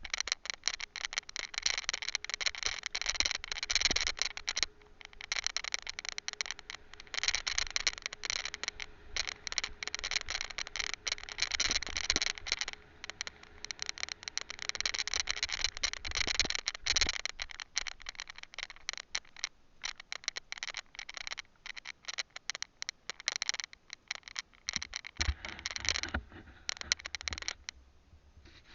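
A loose camera rattling in its mount while riding a trail: a dense, uneven clatter of rapid small knocks that eases briefly several times and dies down near the end.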